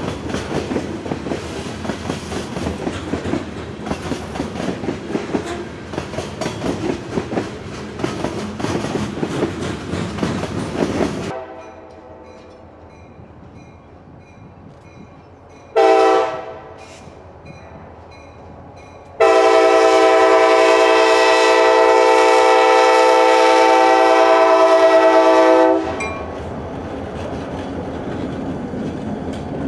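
Freight train's covered hopper cars rolling past, wheels clattering over the rail joints. Then an approaching Kansas City Southern diesel locomotive sounds its air horn, several notes together: a short blast just past the halfway point, then one long blast of about six seconds, the loudest sound here, followed by the locomotive's rumble drawing near.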